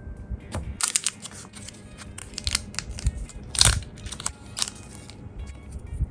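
Thin plastic crinkling and crackling in the hands as the finger gloves are handled and put on: an irregular run of sharp crackles, the loudest about three and a half seconds in.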